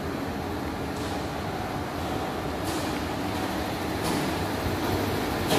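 Steady rumbling hum of railway-workshop machinery, with a few faint clicks or knocks.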